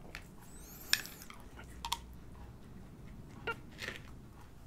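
A metal knife scraping spread out of a glass jar and smearing it onto soft flatbread: a few short scrapes and clicks, the sharpest about a second in.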